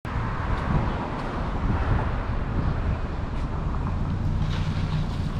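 Street ambience: steady traffic noise, with a low vehicle engine hum growing steadier in the second half.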